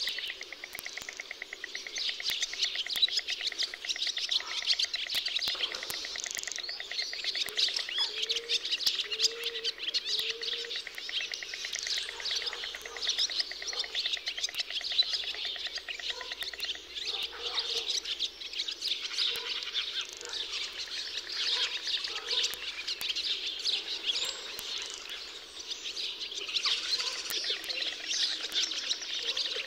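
Dense chorus of many small birds chirping and twittering without a break, with a fast, even trill through roughly the first third and a few short low calls partway through.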